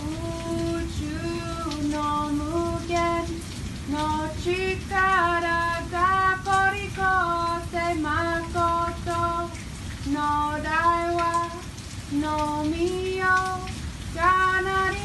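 A single high voice singing a slow melody in held notes that glide from one pitch to the next, over a steady low noise.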